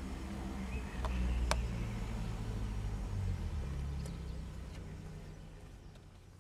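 A low, steady rumble with a hum, broken by a few sharp clicks, fading out over the last two seconds.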